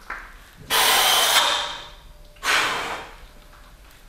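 A powerlifter's heavy, forceful breaths while squatting a loaded barbell: two loud, sharp breaths about two seconds apart, each trailing off over about a second.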